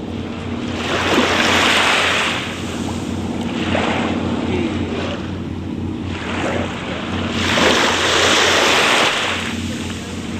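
Surf washing on a beach, the hiss of the waves swelling and falling away three times, over a steady low hum.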